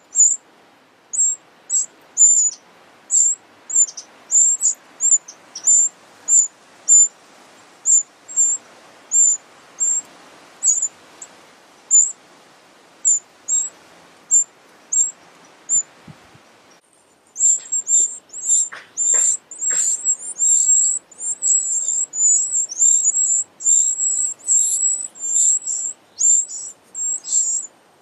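Eurasian wren nestlings begging from the nest with thin, very high cheeps, short separate calls about one or two a second at first. After a brief break past the middle they become a rapid, nearly continuous chorus.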